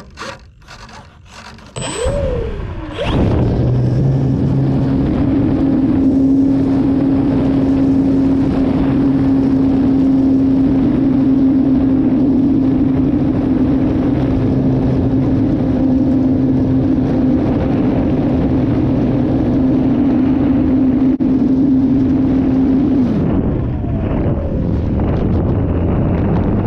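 Radio-control model airplane's engine turning a 12-inch propeller, heard from a camera on the plane. After a few clicks, the engine revs up about two seconds in, then holds a steady high pitch through takeoff and climb. It is throttled back with a falling pitch near the end.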